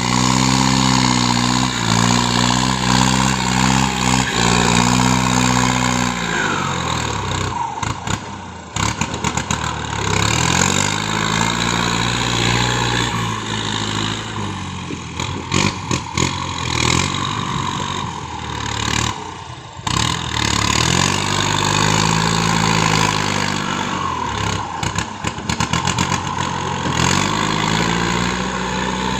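A large engine running hard, its pitch sagging under load and climbing back three times, with scattered knocks and clatter.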